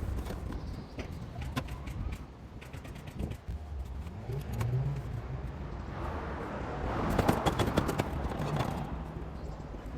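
Hand tools clicking, clinking and scraping on the metal parts of a moped, with a busier run of clicks about seven seconds in, over a low steady rumble.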